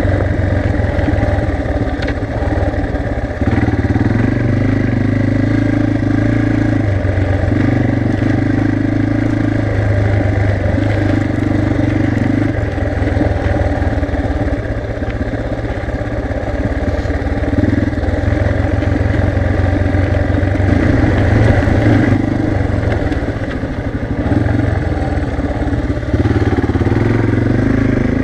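Yamaha TT-R230's air-cooled single-cylinder four-stroke engine running under way on a dirt trail, heard from the rider's chest. The engine note swells and eases every few seconds as the throttle is rolled on and off.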